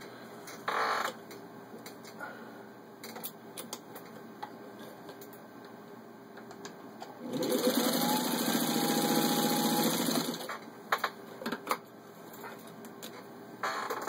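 Singer 15-91 sewing machine stitching through a 1/8-inch leather belt: the motor whines up in pitch as it gets going, then runs steadily with a rapid needle beat for about three seconds from roughly halfway in. Light clicks and taps of handling come before and after.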